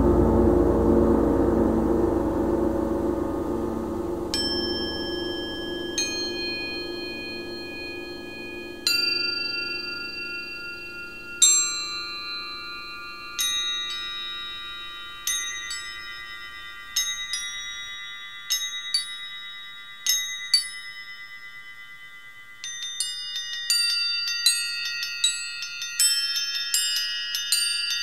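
Background music: a low gong-like tone fades away over the first half while single bell-like struck notes enter every couple of seconds, coming faster and overlapping in the last few seconds.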